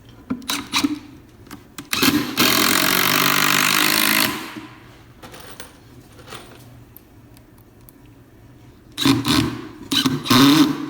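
A power tool runs steadily for about two seconds, with its motor humming. Scattered knocks and clatter of wood being handled come before and after it.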